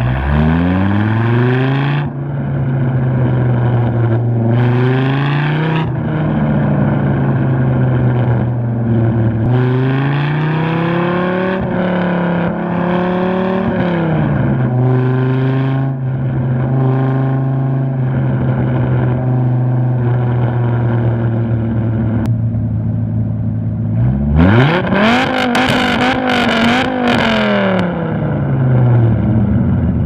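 Cammed Gen 2 Dodge Viper GTS 8.0-litre V10 with an aftermarket exhaust, driving: the engine note climbs and drops through several accelerations, with steady cruising between. About 24 seconds in it revs hard, the loudest moment, then eases off a few seconds later.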